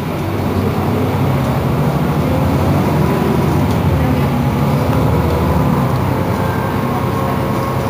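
Iveco Crealis bus running with a steady low rumble and hum. A faint high whine comes in about halfway through.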